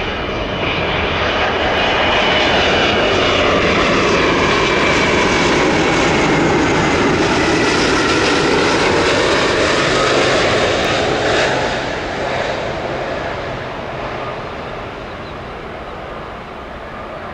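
British Airways Boeing 777's twin jet engines as the airliner passes low overhead on final approach: a loud jet roar swells over the first couple of seconds, holds with whining tones that slide in pitch, then fades from about twelve seconds in.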